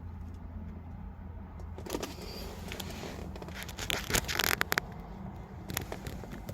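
Keys and key fob jangling and clicking as they are handled inside a car, with a cluster of sharp clicks about four seconds in, over a steady low hum.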